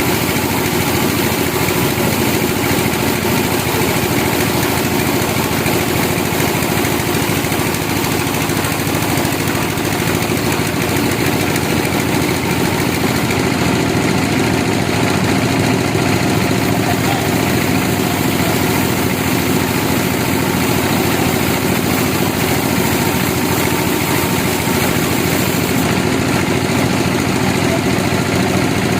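Sawmill machinery running steadily with an engine drone, holding the same level throughout.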